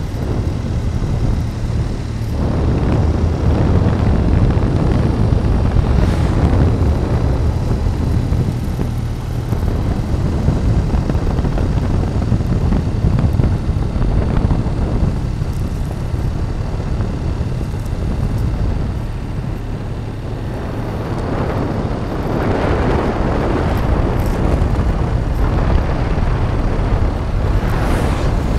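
Motorcycle riding at road speed, its engine and tyres running under heavy wind rush on the microphone, the noise swelling and easing with no clear pitch.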